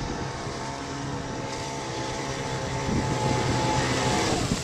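Small gasoline engine of a vintage Power Ski water craft running steadily as it approaches, growing a little louder. Its pitch eases down near the end as it throttles back.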